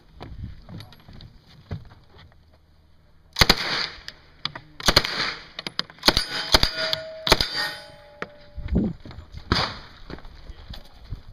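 Gunshots fired singly and in short clusters, with steel targets ringing when hit.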